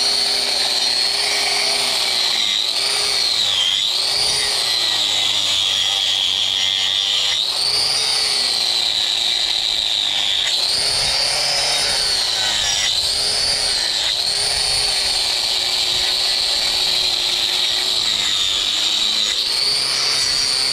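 Electric angle grinder with a trimming disc running continuously on a cow's hoof during hoof trimming. Its whine sags in pitch each time the disc bites into the horn, several times through the stretch, and recovers between passes.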